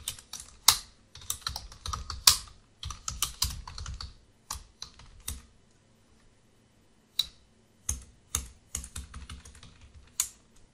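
Computer keyboard typing: quick runs of keystrokes, with a pause of about two seconds a little past halfway.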